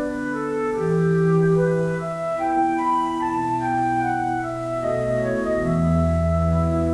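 Background music: slow sustained organ-like keyboard chords with a deep bass note entering near the end.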